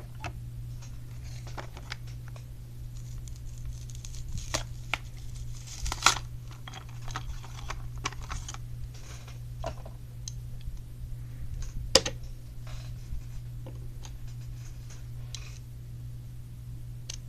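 A plastic blister pack on a cardboard backing being opened by hand: rustling and scattered clicks, with two sharp snaps about six and twelve seconds in, over a steady low hum.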